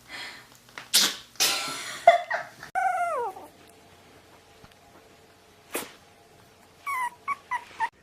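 Puppies sneezing: quick sharp sneezes about a second in, then a short whine falling in pitch, another sneeze near six seconds, and a few small yips near the end.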